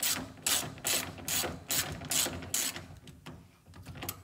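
Hand ratchet wrench tightening a nut on a bolt, giving a short run of pawl clicks on each back-stroke, about two strokes a second. The strokes stop about three seconds in, leaving a few faint clicks.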